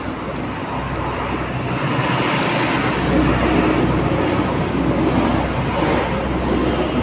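A vehicle engine running steadily, a little louder from about three seconds in.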